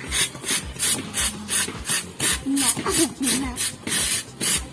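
Stiff brush scrubbing a motorcycle chain in quick, even back-and-forth strokes, about three a second.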